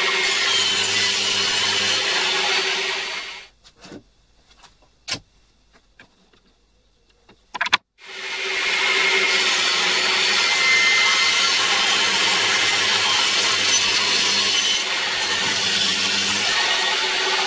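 DeWalt table saw running and cutting through a beech board, with a steady hum under the noise of the blade in the wood. It dies away a little over three seconds in, leaving a few seconds of near quiet broken by a few sharp knocks, then the saw runs up again about eight seconds in and cuts steadily to the end.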